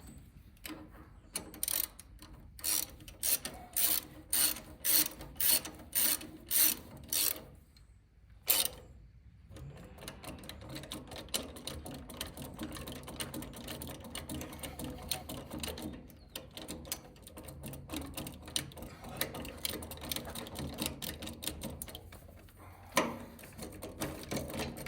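Socket ratchet clicking while a spark plug is worked in its engine-head threads. It starts with a run of slow, loud clicks, about two or three a second, then gives one sharp click. After that comes a long stretch of fast, fine clicking.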